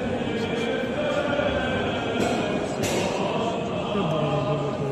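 Voices chanting an Orthodox liturgical hymn in long held notes, over a crowd's murmur, with a brief rustle about two to three seconds in.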